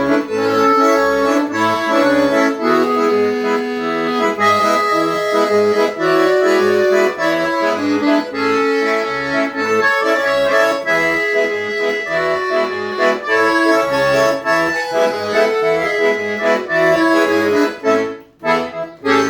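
An Italian 80-bass accordion played solo, a melody over a steady pulsing bass, the instrument freshly serviced and tuned. Near the end the playing breaks into a few separate chords.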